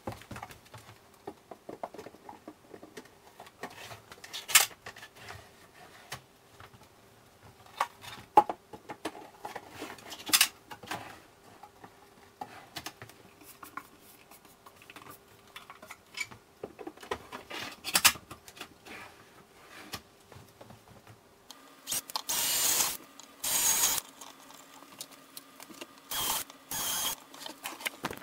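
Wooden drawer boxes and cabinet parts being handled, with scattered knocks and clicks. Near the end a cordless drill runs in about four short bursts, each about a second long.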